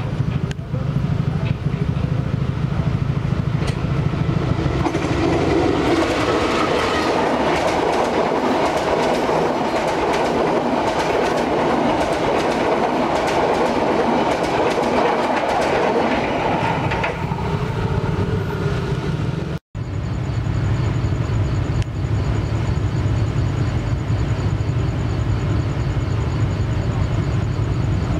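Locomotive-hauled commuter train of CC 201 diesel-electric type passing close by: its coaches roll past with a dense clatter of wheels over the rail joints for about ten seconds, then the sound fades. After a sudden cut, a steady low rumble continues with a thin high whine.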